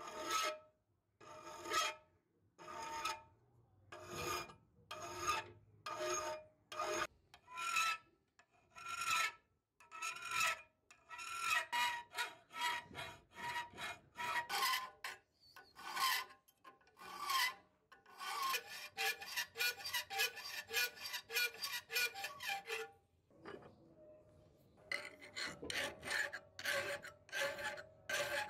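Flat hand file rasping back and forth across the steel jaw of a rusty old Soviet screw wrench held in a bench vise. The strokes are slow and separate at first, then come quicker and shorter, with a brief pause near the end, and each one carries a faint ringing tone from the metal.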